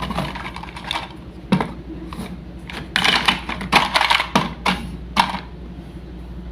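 Wooden toy fruit and vegetable pieces clacking and tapping against each other and a hard surface: a string of sharp clicks, thickest in the middle, with a few single knocks before and after.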